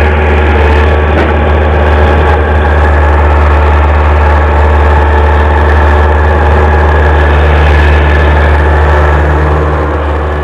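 Swaraj 843 XM tractor's diesel engine idling steadily with a deep, even hum, fading a little near the end.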